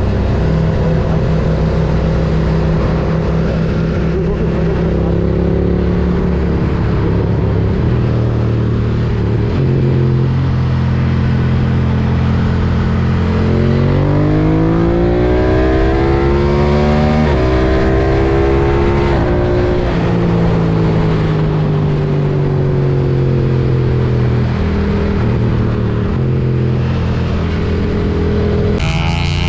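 BMW F900R's parallel-twin engine running under way at road speed, with a steady rush of wind and road noise. About halfway through it revs up, its pitch rising for a few seconds, then drops back and settles to a steady drone again.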